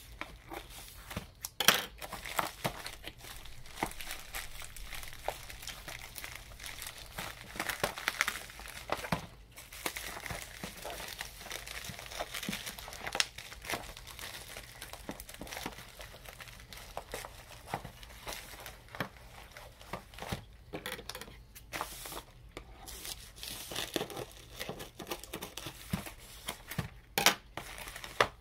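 Plastic poly mailer bag crinkling and tearing as it is cut with scissors and pulled open by hand, a steady stream of sharp crackles and clicks.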